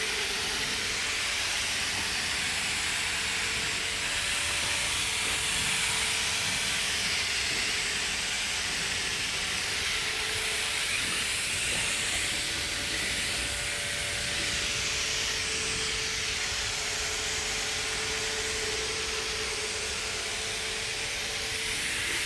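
Undercarriage water broom fed by a Sun Joe 2000 psi pressure washer spraying, a steady hiss of high-pressure water jets, with a faint steady hum underneath.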